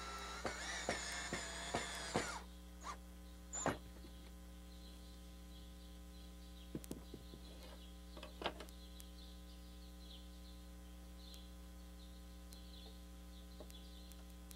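Cordless drill driving a screw into a plywood block: the motor whine rises as it spins up, runs for about two seconds and stops. A few sharp clicks and knocks follow, over a steady low hum.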